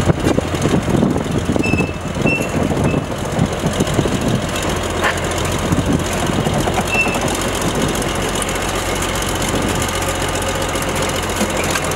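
Plymouth 35T diesel switcher locomotive running as it hauls two cabooses slowly, its engine rumbling steadily with rattling and knocking of the running gear. A few brief high squeaks come in the first few seconds and once more midway.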